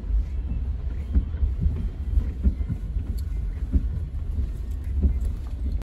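Road noise inside a moving car's cabin: a steady low rumble, with small knocks and bumps now and then.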